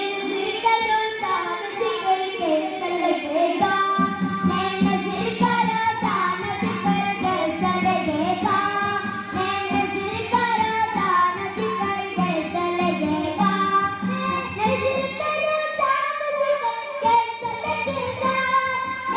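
Children singing a qawwali into handheld stage microphones, with musical accompaniment.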